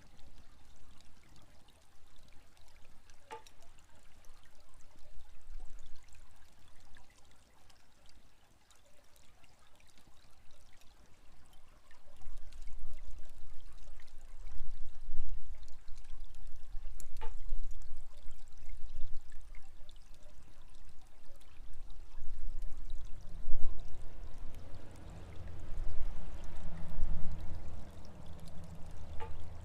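Water pouring steadily from a horizontal well, with a shishi-odoshi bamboo fountain knocking three times at even intervals about 14 seconds apart, and faint crackles from a wood fire. A low rumble comes in about twelve seconds in and stays.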